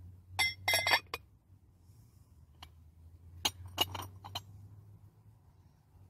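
Cut-crystal bonbonnières and their lids clinking glass on glass as they are handled, a lid fitted onto its footed dish. There is a quick cluster of clinks near the start, a single clink in the middle and a second cluster about three and a half seconds in.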